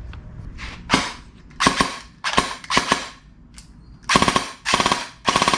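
Airsoft electric gun (AEG) dry-fired in about seven short full-auto bursts, its gearbox cycling rapidly with a fast rattle of piston strokes, the last three bursts louder. The motor now meshes with the gearbox gears after the motor plate and spacer fix, where before it only spun freely.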